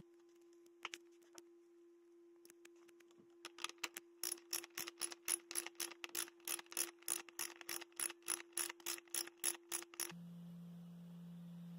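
Socket ratchet clicking as it tightens the air-side top cap back onto a Fox 34 suspension fork with a 26 mm socket. After a few scattered clicks it settles into a steady run of about three or four clicks a second, which stops abruptly near the end.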